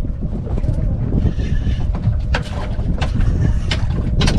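Wind rumbling and buffeting on the microphone aboard a small boat, with several sharp knocks in the second half.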